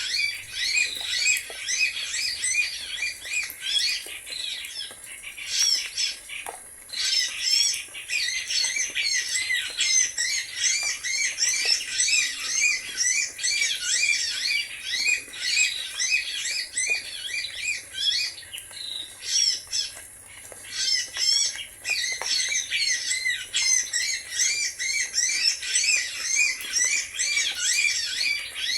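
Small birds chirping and squawking, with many quick high calls overlapping almost without a break and only brief lulls.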